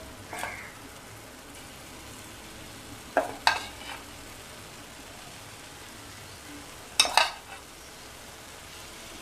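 Paniyaram batter frying in the hot oil of a kuzhi paniyaram pan, a faint steady sizzle. Three short, sharp louder sounds come near the start, about three seconds in and about seven seconds in, as more batter is poured into the oiled cavities.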